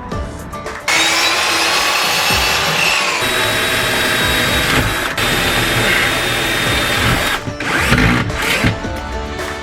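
A power tool runs for about six seconds, a loud steady whine with a noisy edge, changing pitch about three seconds in, over background music.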